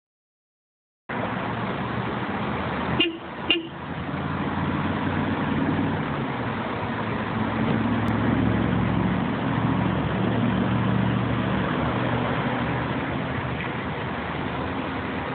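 Steady car engine and traffic noise with a low hum, broken about three seconds in by two short car-horn toots half a second apart.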